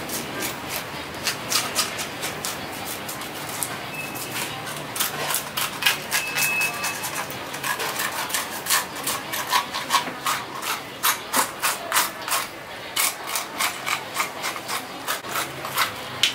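Hand fish scaler rasping the scales off a whole snakehead fish on a wooden chopping block, in quick repeated scraping strokes a few times a second.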